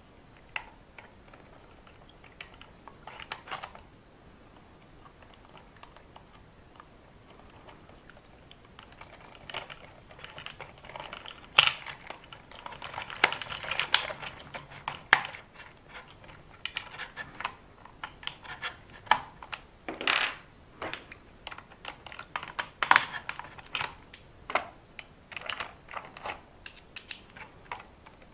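Small clicks, taps and rattles of hand tools and plastic and metal RC car parts as a hex driver and nut driver fit parts back onto the front end of an RC buggy chassis. Sparse at first, busier from about ten seconds in.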